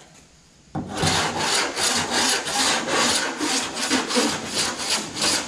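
Body file floated lightly over a sanded car door panel, a rasping scrape in quick repeated strokes that starts a little under a second in. This is the check for high spots before filler, where high metal would be heard right away.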